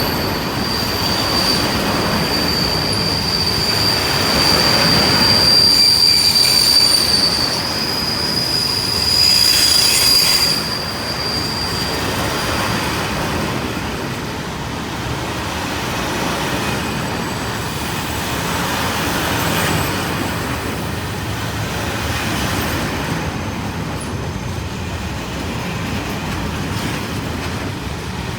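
A train running past with its wheels squealing in a steady high tone for about the first twelve seconds, over a continuous rumble of wheels on the rails. The squeal stops partway through, and the rumble of the passing train carries on.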